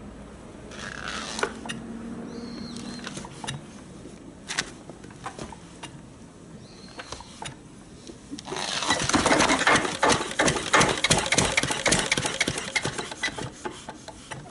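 Early-model Yanmar K2 single-cylinder diesel stationary engine: a few light clicks and knocks as it is readied and turned over, then about eight and a half seconds in it catches and runs with a fast, even clatter that eases near the end. With boiling water in its hopper it starts readily.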